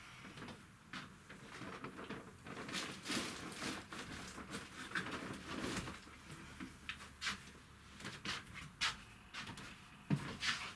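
Irregular clicks, knocks and rustles of small objects being handled and put down, with someone moving about; the sharpest knock comes about ten seconds in.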